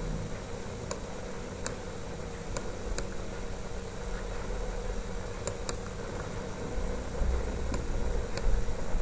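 Steady room hum and hiss with about eight sharp, scattered computer-mouse clicks as the document is scrolled. A low rumble swells near the end.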